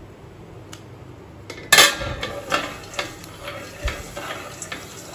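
A steel plate clatters down as a lid onto a stainless-steel kadhai about two seconds in. It is followed by irregular light clicks and scrapes from the covered pan of freshly popped popcorn.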